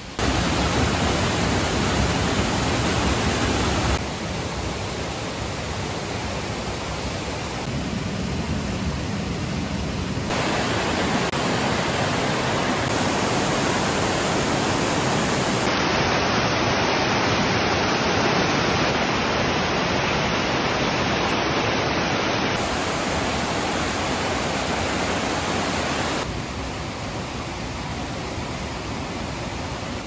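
Mountain stream rushing and splashing over boulders in a rocky gorge, a steady white-water rush. It changes suddenly in loudness and tone several times as the shots change.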